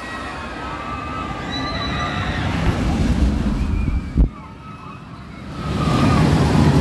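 Steel roller coaster train running through its loop with riders screaming, over a rumble of wheels on the track. A sharp knock comes about four seconds in, and the rumble swells loud near the end as the train sweeps close past.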